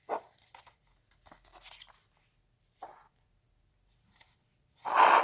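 Comic book pages being handled and turned: a few short, soft paper rustles and light ticks, the loudest rustle near the end.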